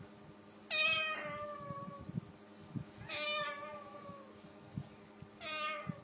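White cockatoo imitating a cat's meow: three drawn-out meows, each falling in pitch, about two and a half seconds apart.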